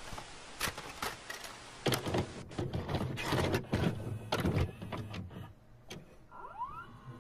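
VCR tape-loading sound effect. Tape hiss gives way to a run of mechanical clicks and clunks over a low motor hum as the tape is taken in, then a short rising whine near the end as the mechanism spins up.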